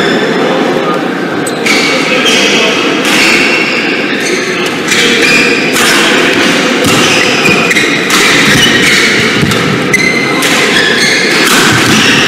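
Badminton rally: rackets hit the shuttlecock every second or two, while shoes squeak and feet thud on the court mat, over steady echoing hall noise.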